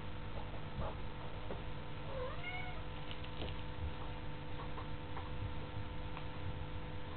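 A kitten meows once, about two seconds in, in a short call that rises and then falls in pitch. A few faint taps follow.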